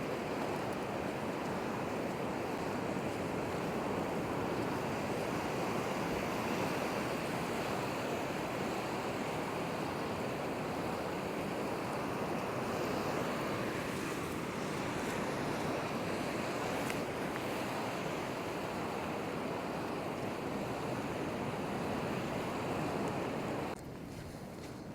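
Steady rushing noise of sea surf mixed with wind, which drops away abruptly about a second before the end.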